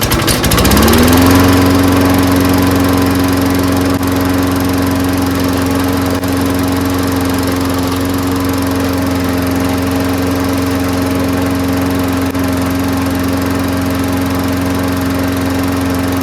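Craftsman self-propelled push mower's single-cylinder engine pull-started on its primer, catching at once and revving up within about a second to a steady run at governed speed.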